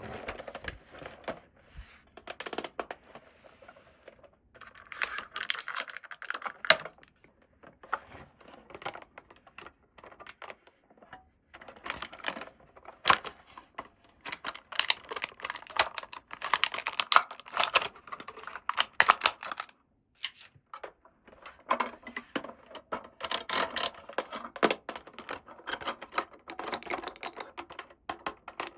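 Small plastic toy pieces and packaging being handled and set down, giving rapid clicks and taps in bursts with short pauses.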